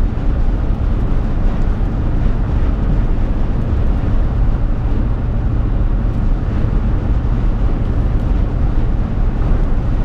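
Steady cabin noise of a truck cruising at highway speed: a deep, even rumble of engine, tyres and wind, with no change throughout.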